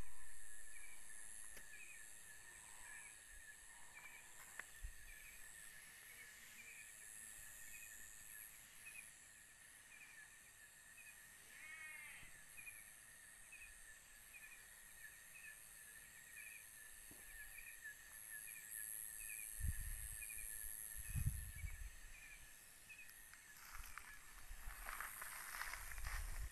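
Faint night chorus of crickets and other insects: a steady high trill under short chirps repeating about every three-quarters of a second. Near the end come low thumps and rustling footsteps.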